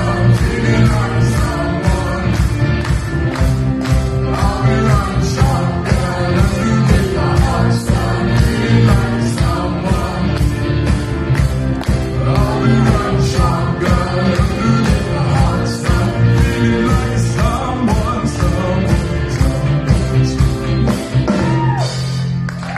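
Band performing an upbeat pop-rock song, a singer over a steady drum beat with guitar and bass.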